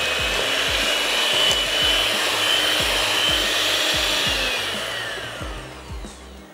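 Electric hand beater running, mixing butter, sugar and eggs in a bowl, then switched off, its whine falling in pitch and dying away near the end.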